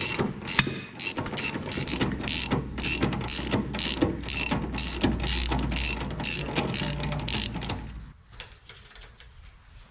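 Hand ratchet on a long socket extension clicking in quick repeated strokes, about three clicks a second, as a bolt is worked loose. The clicking stops about eight seconds in.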